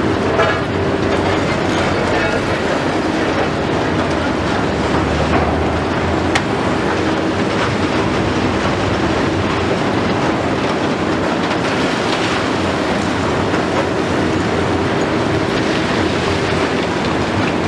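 Liebherr 954 demolition excavator working concrete rubble: its six-cylinder diesel and hydraulics run under load with a steady hum, beneath a continuous grinding, crunching din of concrete being broken and pushed around by the demolition tool.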